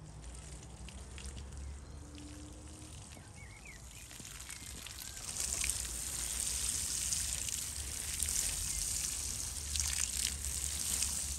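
Water sprinkling from the rose of a plastic watering can onto soil and flower plants, a steady shower of droplets that grows louder about five seconds in.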